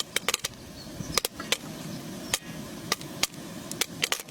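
Popcorn kernels popping: sharp, irregular pops, a few a second, over a steady hiss.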